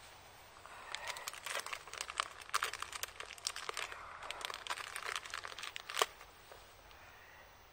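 Thin plastic bag or wrapper crinkling and rustling as it is handled in gloved hands, in quick irregular crackles from about a second in, with one sharper crackle about six seconds in.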